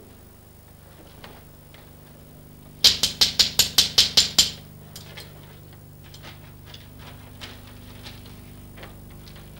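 A quick run of about ten sharp, evenly spaced knocks or claps, lasting about a second and a half, about three seconds in, followed by a few faint scattered clicks over a low steady hum.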